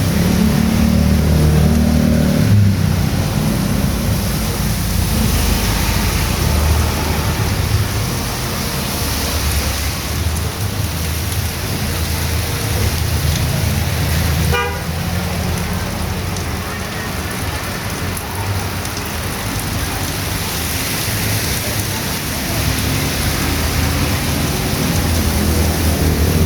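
Heavy rain pouring on a street, with motor vehicles passing through it, their low rumble swelling and fading. A brief beep, like a horn toot, about halfway through.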